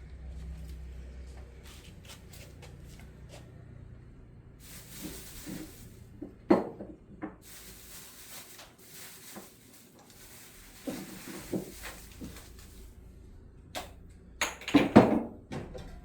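Hand tools and parts being handled while working on a car engine: scattered knocks and clatter, the loudest near the end, with two short stretches of hissing.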